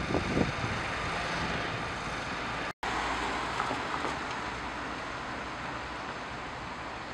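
Steady rumble of vehicle engines with a hiss above it. The sound drops out for a moment a little under three seconds in.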